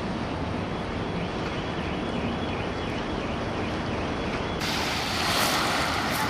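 Waterfront ambience: a steady rush of wind and water with a low rumble underneath. About four and a half seconds in it cuts to a brighter, hissier rush of wind and water.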